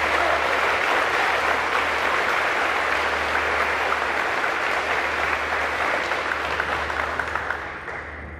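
A small audience applauding, steady, then dying away near the end.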